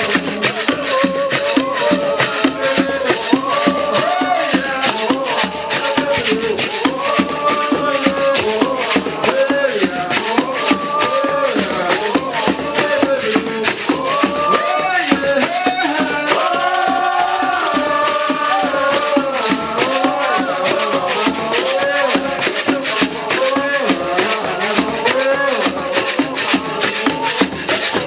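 Traditional music: rattles shaken in a dense, steady rhythm under singing voices.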